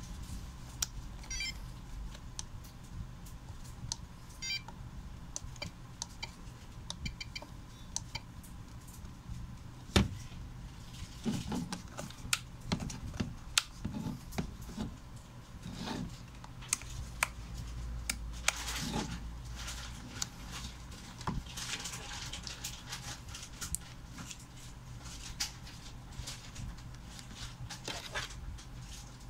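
Handling of a FlySky FS-i6 radio transmitter: scattered clicks of its keys and toggle switches, a few short runs of beeps, and rustling and knocks as hands move it about.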